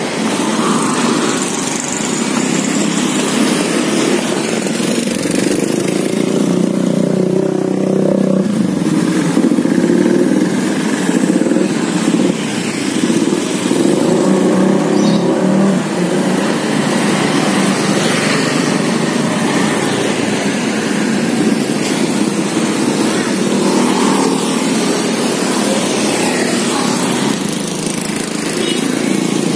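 Street traffic noise: motorcycle and car engines running and passing, a steady loud rumble.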